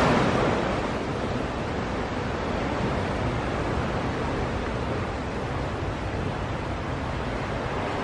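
Ocean surf breaking on a beach: the wash of a wave fades in the first second, then a steady rush of surf.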